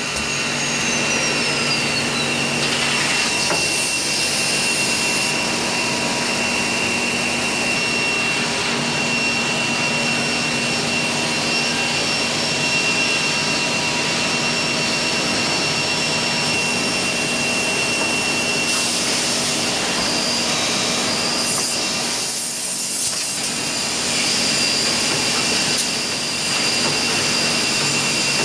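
Holztek high-speed six-sided CNC drilling machine running with a steady whine and rushing noise from its spindles and dust extraction. A whine falls in pitch in the first couple of seconds, and a few short hisses come about two-thirds of the way through.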